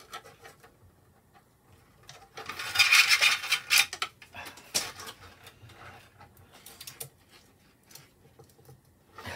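Hands working a thin bungee cord inside a 3D-printed plastic housing: a loud rubbing, scraping rustle for about a second and a half a couple of seconds in, then scattered light clicks and knocks of plastic being handled.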